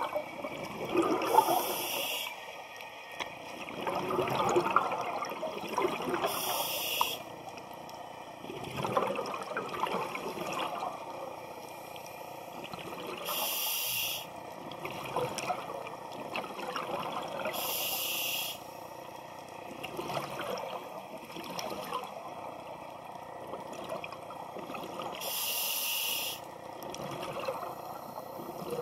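Scuba diver breathing through a regulator underwater: five short hissing inhalations, each followed by a longer burble of exhaled bubbles, in a slow breathing rhythm.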